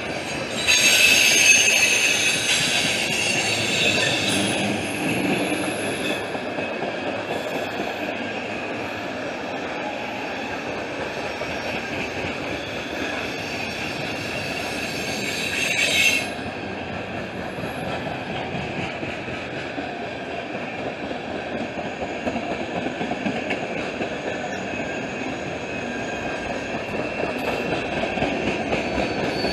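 Freight train cars rolling past with a steady rumble of steel wheels on rail. A high-pitched wheel squeal starts about a second in and is loudest over the first few seconds. A second squeal builds and cuts off suddenly about halfway through.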